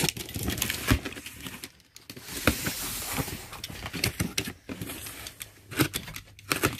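Utility knife slicing through packing tape on a cardboard box, then the cardboard flaps scraping and knocking as the box is opened. Scattered sharp clicks and knocks run throughout.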